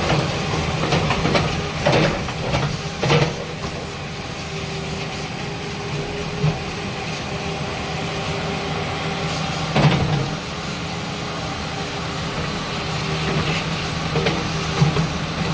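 Komatsu PC56-7 mini excavator's diesel engine running steadily while its hydraulic boom and arm are worked, with a few short knocks from the arm and bucket linkage about two, three and ten seconds in.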